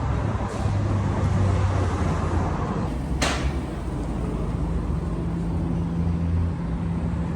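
Car engine running steadily, with a short hiss about three seconds in.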